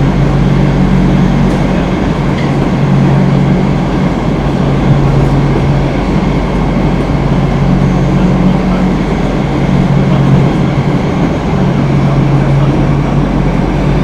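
Stockholm Metro C6 subway car heard from inside the cabin while running: a steady rumble of wheels and running gear, with a low hum that comes and goes every second or two.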